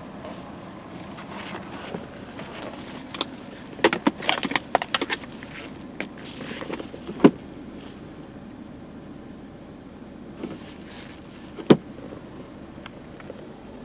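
A 2002 Dodge Grand Caravan's 3.8 L engine running with a steady low drone. A quick run of sharp clicks and rattles comes about four seconds in, and single sharp knocks near seven and twelve seconds.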